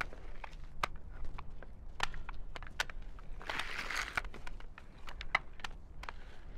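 Prostrating pilgrims' wooden hand boards clacking and knocking on stony ground, with gravel scuffing underfoot and a longer scrape of a body sliding over the gravel near the middle.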